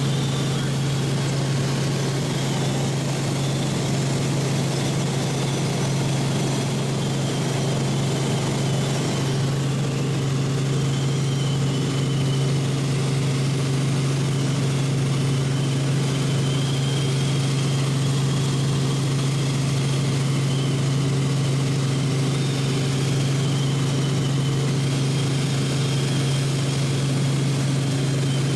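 Helicopter in flight heard from inside the cabin: a steady engine and rotor drone with a strong low hum and a constant hiss.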